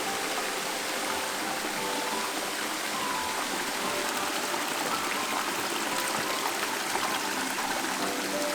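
Waterfall water rushing steadily, an even hiss of falling and flowing water.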